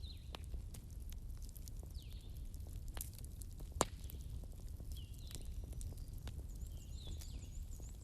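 Wood bonfire crackling: scattered snaps and pops over a steady low rumble, with one sharper pop a little before the middle. Short high chirping calls sound every couple of seconds behind the fire.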